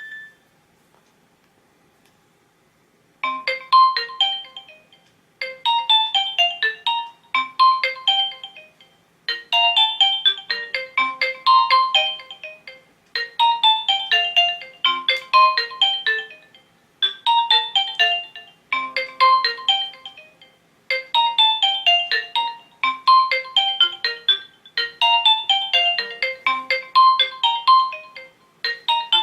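Nokia N95 built-in ringtone: a fast electronic melody of quick short notes, starting about three seconds in after a pause. It plays in phrases of about two seconds, repeated over and over.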